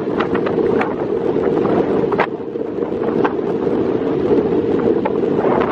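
Strong wind buffeting the microphone: a loud, steady rumble with frequent short crackling buffets.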